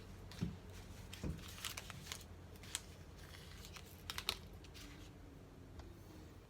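Scattered light clicks, taps and a little rustling from small items being handled while making coffee, over a low steady background hum.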